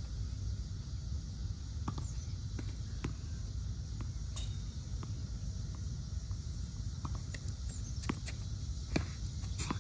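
Tennis ball struck by a racket and bouncing on a hard court: a few sharp, separate pops about 2, 3, 8 and 9 seconds in and again near the end. Under them a steady low rumble and a high hiss of outdoor background.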